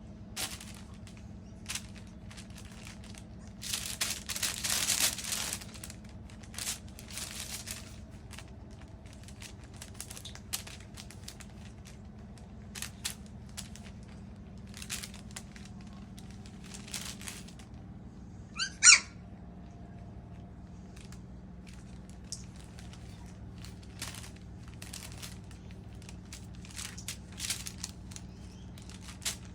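Baking paper crinkling and rustling in short bursts as puppies step and scrabble on it, the longest burst about four seconds in. About nineteen seconds in comes one short, high squeak, the loudest sound.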